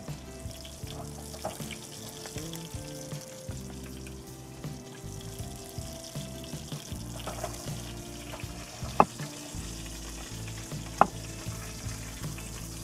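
Ground-beef Salisbury steak patties frying in their drippings in a non-stick skillet, a steady sizzle. Two sharp clicks come a couple of seconds apart in the second half.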